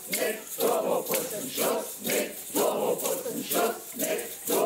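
A group of people chanting a protest slogan in unison to a steady beat, about two calls a second, with hand-held shakers rattling in time.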